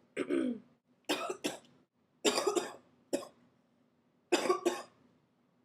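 A sick person coughing repeatedly, in short bouts of one or two coughs about a second apart.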